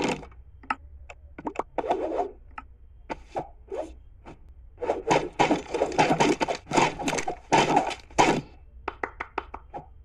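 Cartoon sound effects of Minecraft crossbows firing, being flung and clattering onto the ground: a string of short clicks, thuds and scrapes, thickening into a fast run from about five seconds in to just past eight.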